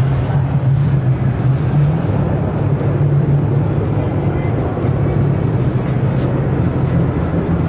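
Steady rumbling roar of the Breitling Jet Team's seven L-39 Albatros turbofan jets flying in formation.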